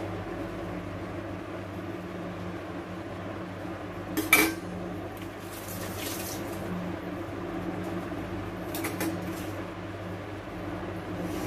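Metal spatula clanking once against a stainless-steel thali about four seconds in, then scraping across it as hot khandvi batter is spread thin. A steady low hum runs underneath.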